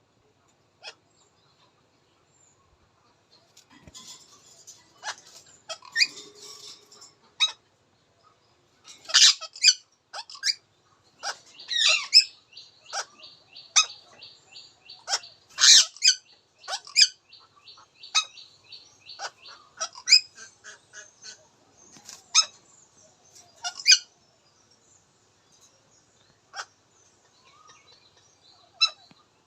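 Indian ringneck parakeet calling: short, sharp, high-pitched calls at irregular intervals, with a rapid chattering run of repeated notes about twelve seconds in that lasts several seconds.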